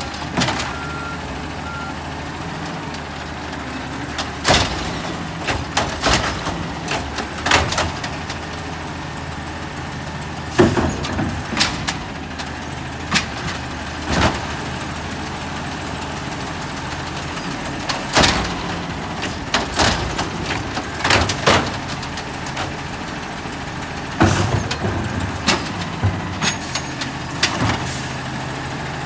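Automated side-loader garbage truck running steadily at the curb, its diesel engine droning low, while its arm handles the wheeled trash carts with repeated clusters of loud clanks and bangs.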